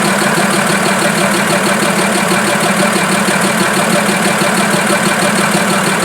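Fiat 190 truck's diesel engine running steadily at a low, even speed, with a continuous rhythmic beat.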